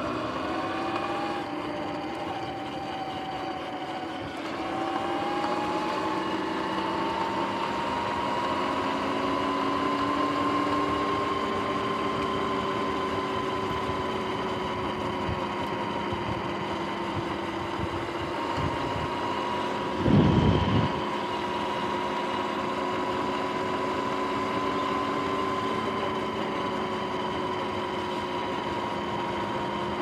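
Sur-Ron X electric dirt bike under way: a motor-and-drive whine that rises as the bike speeds up early on, then holds a steady pitch while cruising. About two-thirds of the way through there is a brief low rumble.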